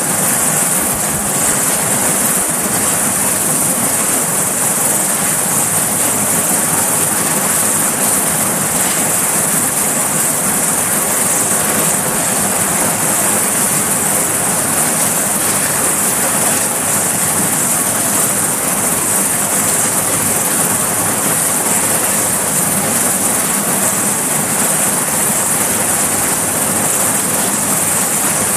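Sikorsky S-61 helicopter's twin turboshaft engines and main rotor running on the helideck, rotors turning before lift-off: a loud, steady rush of noise with a strong high-pitched hiss.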